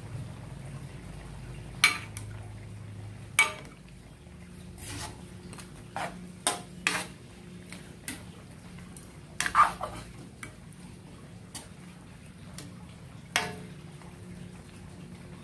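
Metal ladle clanking and scraping against a large metal wok as chicken adobo in its sauce is stirred. About seven sharp clanks are spread through, the loudest about nine and a half seconds in, over a low steady hum.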